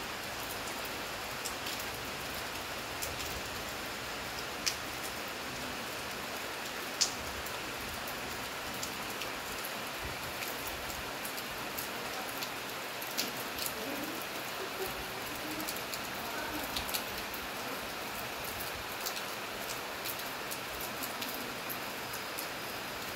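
Steady hiss of falling rain, with scattered sharp ticks of single drops landing close by. Two louder ticks come about five and seven seconds in.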